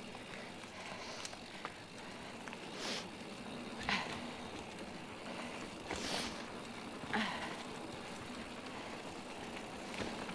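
Mountain bike rolling along a dirt trail: steady tyre and drivetrain noise, with four brief louder bursts as the ride goes on.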